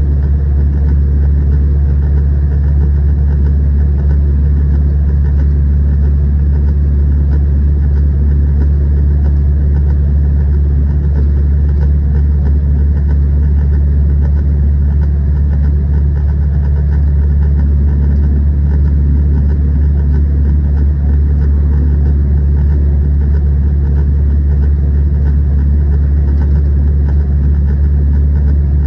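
Zetor 6211 tractor's diesel engine running at a steady, constant speed, a loud low drone that does not change.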